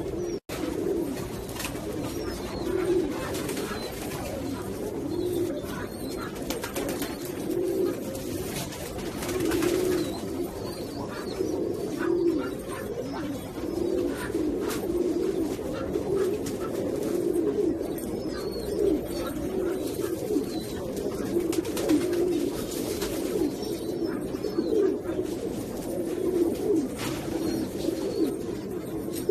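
Domestic pigeons cooing continuously, many low coos overlapping one another without a break. The sound cuts out for an instant about half a second in.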